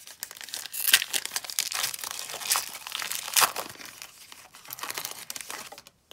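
Foil wrapper of a trading-card pack being torn open and crinkled by hand, crackling loudest about a second in and again past the three-second mark.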